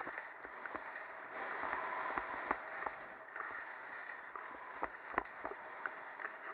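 Skis hissing and scraping over wind-packed snow on a downhill run, with scattered sharp clicks and knocks throughout.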